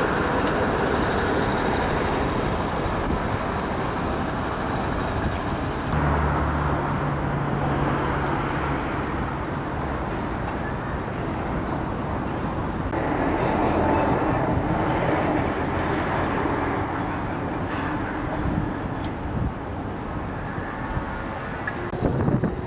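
Outdoor city ambience of steady road traffic, a continuous rumble and hiss of passing vehicles, with a low engine hum for a few seconds after a cut about six seconds in.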